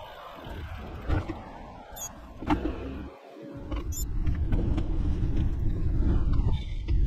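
Wind rumbling on the microphone of a camera on a moving road bike, with a few sharp clicks in the first half. The rumble grows louder and steadier about halfway through.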